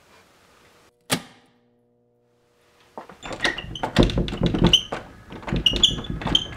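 A single sharp bang about a second in, then from about three seconds a rapid, uneven run of knocks and metallic clatters: a door being rattled, its metal knob and latch jangling.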